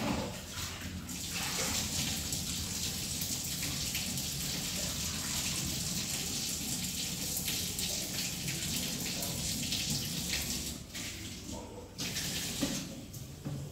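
Kitchen tap running into a sink as something is washed under it, a steady rush of water. Near the end the flow stops for about a second, then runs again briefly.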